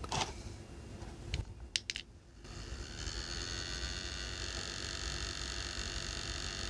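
A few clicks as the Peltier phone cooler is handled and switched on. About two and a half seconds in, its small cooling fan starts and runs steadily: a hiss with several high steady tones.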